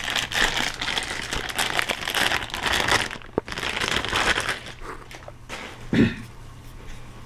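Plastic packaging crinkling as it is handled and unwrapped, irregular and fairly loud for about five seconds, then quieter, with a short thump about six seconds in.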